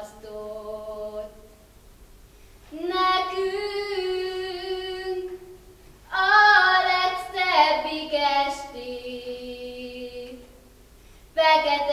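A girl singing a slow Hungarian song solo with no accompaniment, in long held notes, three phrases with short pauses between them.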